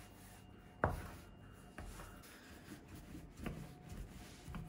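A metal bench scraper cuts through bread dough, its blade knocking once sharply on the worktop about a second in. Then come soft rubbing and a few light knocks as a wooden rolling pin rolls the dough out thin.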